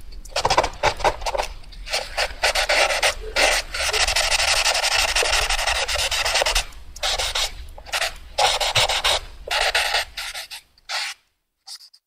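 Pencil drawing fast on paper: quick scratchy strokes, with one long unbroken stretch of shading in the middle, stopping about a second before the end.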